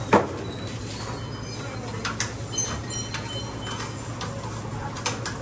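A thump, then scattered light clicks and knocks as a cup is handled at a self-serve drink dispenser, over a steady low hum.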